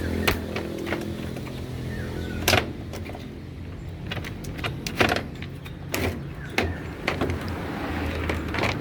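Plastic top panel of a washing machine being lifted and handled: scattered sharp clicks and knocks of plastic parts, the loudest about two and a half and five seconds in, over a steady low hum.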